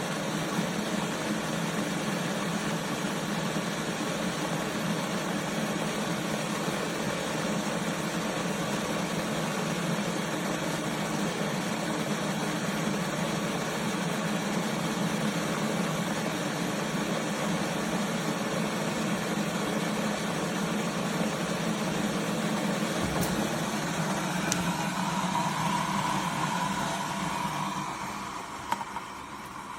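1500 W stainless-steel electric kettle heating water, a steady rumbling hiss. Near the end the noise dies away and there is a sharp click.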